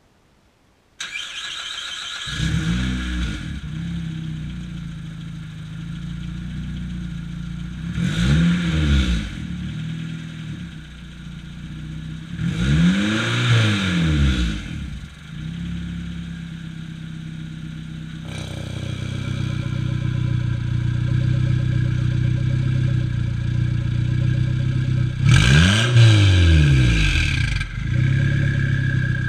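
Turbocharged car engine with a 3-inch exhaust and an exhaust cutout, started about two seconds in with a brief flare of revs, then idling. The throttle is blipped three more times, each rev rising and falling in pitch, and the idle grows louder and fuller about eighteen seconds in.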